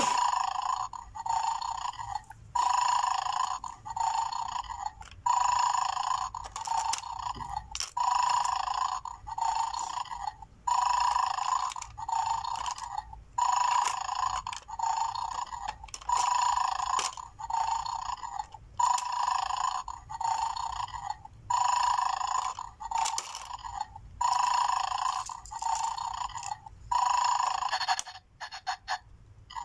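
Electronic snoring sound effect from a battery-powered 'mad dog' bone-game toy, a rough snore repeating about once a second from its small speaker, the sound the dog makes while it 'sleeps' before it springs. A few light clicks of plastic tongs against the plastic bones in its dish.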